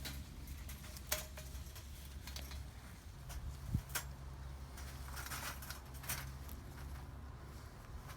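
Scattered light metallic clicks and rattles, the sharpest about a second in and near the middle, from a wire live trap being handled with a squirrel moving inside it, over a low steady hum.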